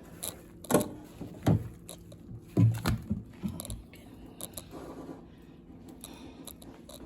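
Dishes and utensils being handled while washing up in a sink: a few sharp clinks and knocks in the first three seconds, then lighter, scattered clatter.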